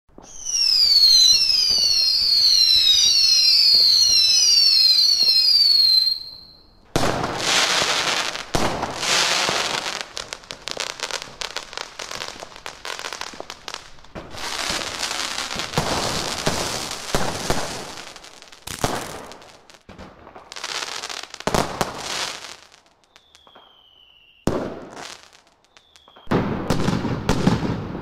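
Fireworks: for about six seconds many overlapping rocket whistles, each dropping in pitch. Then comes a long run of loud bursts and crackling. Near the end two more short whistles are each followed by a bang.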